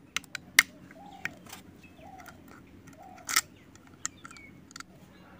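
Screwdriver clicking and ticking against the metal screws and housing of a horn speaker's driver unit as it is taken apart: irregular sharp clicks, the loudest about half a second in and at about three seconds. A few short bird calls in the background.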